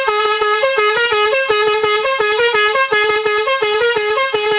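Three-trumpet basuri telolet horn playing its programmed melody number 6: a loud, quick run of short notes hopping between a few pitches, cutting off at the very end.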